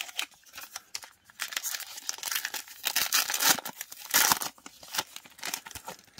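A Magic: The Gathering booster pack's foil wrapper being torn open by hand, crinkling and ripping in irregular crackles, loudest about three to four seconds in.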